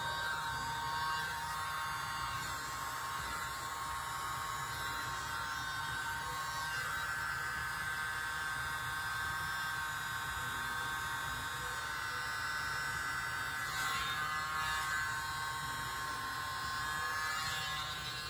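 Tiny handheld electric mini leaf blower running with a steady high whine, blowing wet acrylic paint out into petals.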